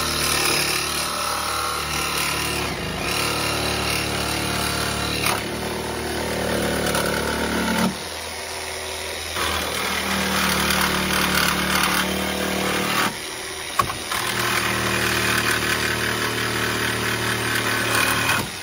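Metabo HPT cordless jigsaw on a 36-volt battery running steadily as its blade saws through steel wire shelving. It goes briefly quieter twice as the load eases, then stops abruptly at the end of the cut.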